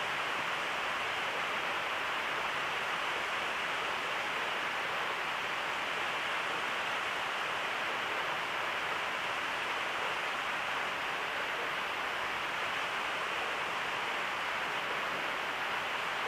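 Steady hiss of background noise, with no other sound.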